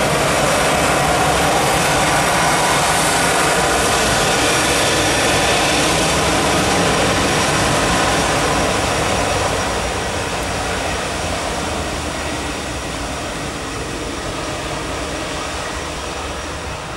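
Jet engines of an Airbus A319 running at high power: a loud, steady, full-range rush of noise that drops off about ten seconds in as the aircraft moves away.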